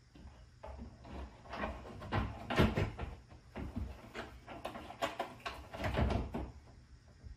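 Recessed fire extinguisher cabinet tub being pushed into a cutout in drywall: a run of irregular knocks, bumps and scrapes against the drywall edges, loudest about two and a half seconds in and again near six seconds.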